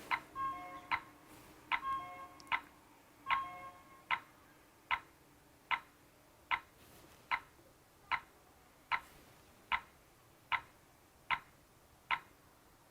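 Tuya burglar alarm panel sounding short electronic ticks about every 0.8 seconds, the countdown of the arming delay, which stop near the end. During the first four seconds a short electronic tune plays alongside the ticks.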